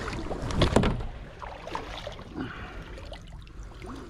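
A small hooked tuna splashing and thrashing at the water's surface as it is gaffed beside the boat, the loudest splash a little under a second in.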